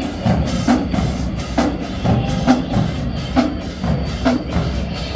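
Marching band playing, its drumline keeping a steady beat of sharp strokes about twice a second over low sustained notes.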